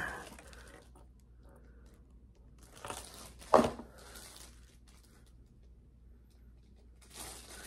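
Packaging crinkling and tearing softly as the next item is unwrapped, with one short, sharp louder crackle about three and a half seconds in.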